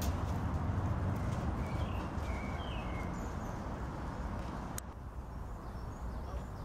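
Street ambience: a steady low traffic rumble with a few short bird chirps about two to three seconds in. A sharp click comes about five seconds in, and after it the rumble is quieter.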